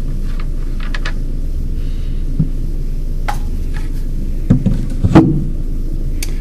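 Handling noise as a suppressor is unscrewed from a Ruger 10/22 rifle and set down: a few short metallic knocks and clicks, the loudest two about four and a half and five seconds in. A steady low hum runs underneath.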